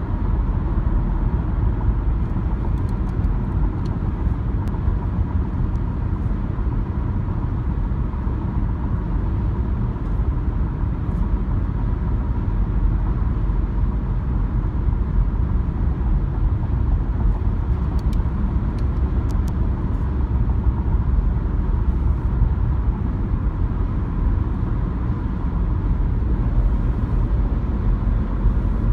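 Steady road noise inside a car's cabin at highway speed: tyres and engine as an even, low drone that doesn't change.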